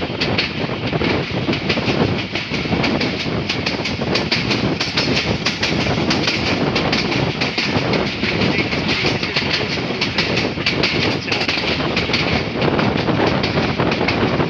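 Passenger train running at speed, heard through an open window: steady noise of wheels on rails with a dense rattle of the carriage.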